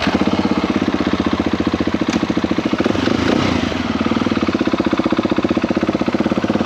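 KTM 690 SMC-R's single-cylinder four-stroke engine idling with a fast, even pulse.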